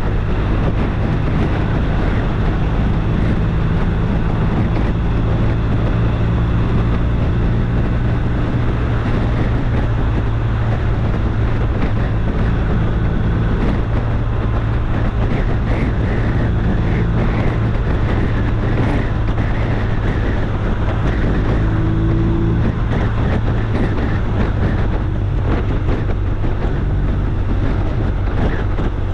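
A steady low engine drone with a constant pitch, with wind noise on the microphone.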